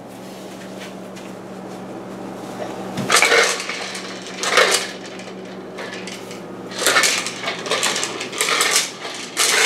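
A toddler's toy hammer knocking and clattering in about six short bursts, spread over the second half. A faint low hum runs underneath and stops about two-thirds of the way through.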